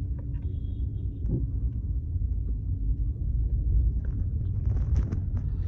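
Low steady rumble with a faint hum, and a few small clicks near the end as plastic charms are handled and fitted onto a bracelet.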